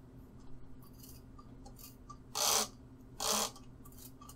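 Trigger spray bottle of glass cleaner squirting twice, two short sprays about a second apart. It is wetting a 3D print on a taped glass print bed to loosen it for removal.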